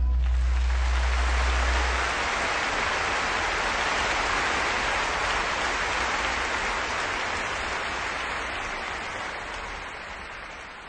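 Audience applauding as the music ends, with a last low bass note dying out in the first couple of seconds; the applause then gradually fades out.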